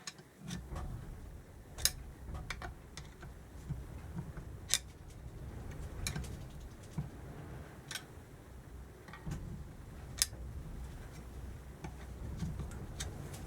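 Light metal clicks and taps every second or two over a low rustle of handling, as a motorcycle generator part is shifted by hand to line it up for its retaining bolts.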